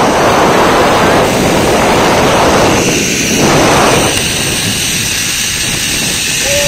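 A zipline trolley's pulleys running along the steel cable at speed, with wind rushing over the microphone. It makes a loud, steady rushing noise that swells twice, about a second in and again around three to four seconds in.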